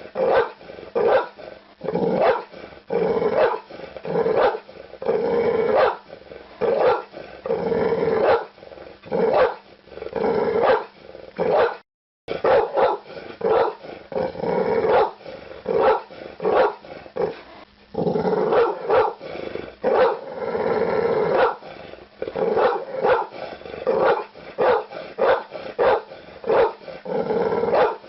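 Pit bull barking over and over, about two barks a second, with a brief gap of silence about twelve seconds in.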